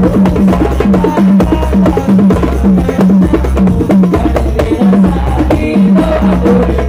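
Hadrah percussion ensemble playing a fast, steady rhythm on darbuka, tung bass drum and rebana frame drums, with deep bass drum notes under the hand strokes.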